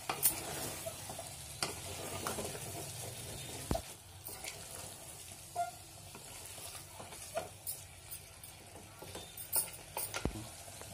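Wooden spatula stirring a moist meat curry in an aluminium pressure cooker, with irregular scrapes and knocks against the pot over a steady sizzle.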